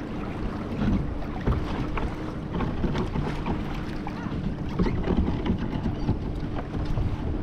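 Water lapping and slapping against the wooden hull of a small sailing canoe under way in shallow water, in short irregular splashes, with wind on the microphone and a faint steady hum underneath.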